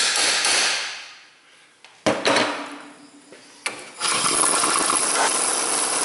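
Hammer tapping rapidly on a steel bearing press tool, stopping about a second in, then an air impact wrench driving the press screw to push a new front wheel bearing into the knuckle: two short bursts, then a steady run from about four seconds in.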